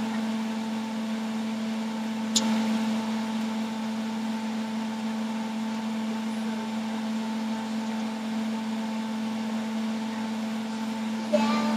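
Blender motor running steadily with a constant hum, blending ginger for a ginger shot; a single sharp click about two and a half seconds in.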